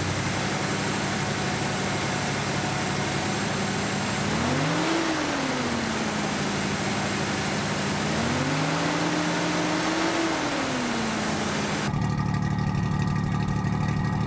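The 1988 Toyota SR5 pickup's 3.0-litre V6 idles steadily and is revved by hand at the throttle linkage twice: a short blip about four seconds in, then a longer rev held for about three seconds. Near the end the sound switches to the idling exhaust heard at the tailpipe, with a fuller, lower note. This is a 282,000-mile engine, freshly tuned up, that the owner says is running strong.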